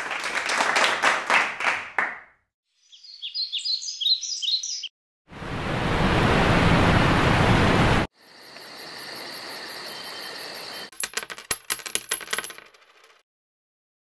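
A string of separate sound effects with short gaps between them: first a rapid run of clicks or taps, then high chirps, then a loud rushing noise for about three seconds, then a quieter steady noise carrying faint tones, and finally another burst of clicks that dies away before the end.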